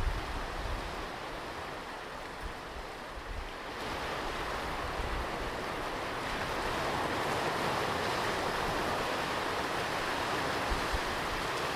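Ocean surf on a beach: waves breaking and washing in as a steady rushing noise that swells about four seconds in and stays full. Low wind rumble on the microphone at the start.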